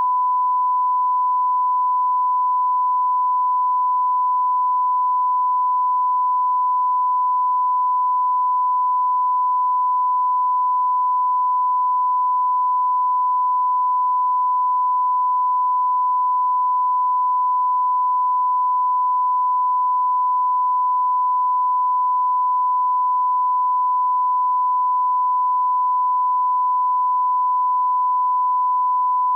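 Censor bleep: one steady, unbroken beep tone at a single pitch, masking swearing.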